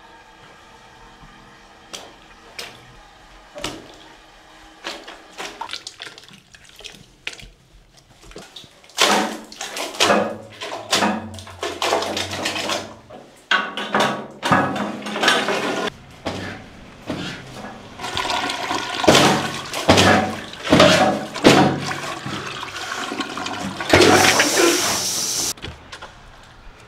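A toilet bowl clogged with toilet paper, water sloshing and splashing as a foot stamps down into it, with the toilet flushing. First a few scattered knocks, then repeated loud surges of splashing water, and a strong rush of water near the end.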